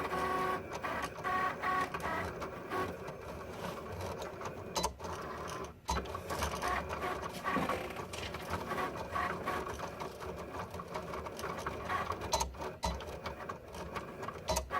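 Cricut Explore Air cutting machine running its motors: a whirring tone with dense, rapid mechanical clicking and rattling, broken by a couple of brief pauses. This is the noise the owner of the new machine is questioning.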